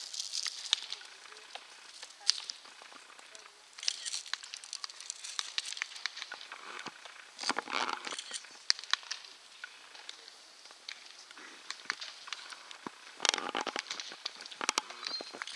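Several sharp pops of baseballs smacking into leather gloves during a game of catch, scattered irregularly over a background of uneven outdoor noise.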